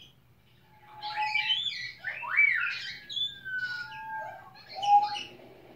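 African grey parrots calling: a quick run of squawks and whistles, with rising and falling whistled slides and short clear whistled notes, loudest about five seconds in.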